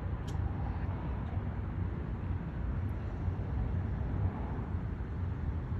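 Steady low rumble of outdoor background noise, with a faint click about a third of a second in.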